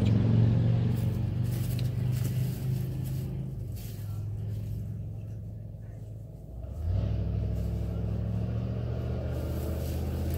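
A steady, low mechanical drone of a running motor. It fades for a few seconds, then swells up again abruptly about seven seconds in.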